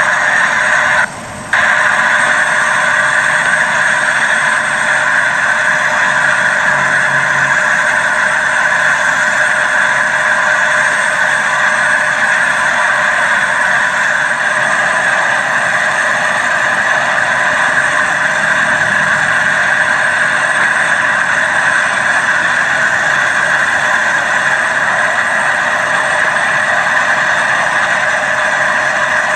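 Military aircraft engine running steadily, a loud, even mechanical noise with a drop in level for a moment about a second in.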